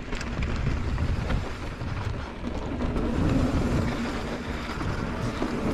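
Mountain bike rolling along a dirt singletrack: a steady rumble of tyres and wind on the microphone, with scattered clicks and rattles from the bike.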